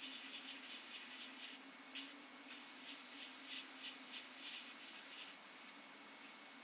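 Airbrush hissing in short quick bursts, about three a second, as the trigger is worked while spraying black paint. A low steady hum runs beneath it. The bursts stop about five seconds in.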